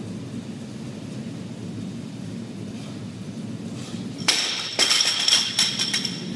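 A steady low background hum, then about two-thirds of the way in a quick run of sharp, ringing clinks of hard objects striking one another.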